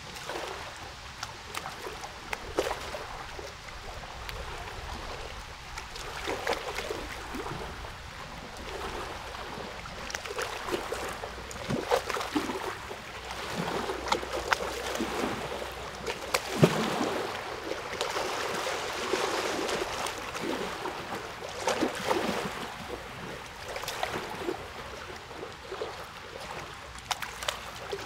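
Water gurgling and splashing in an uneven run of small splashes, like water lapping or a shallow stream.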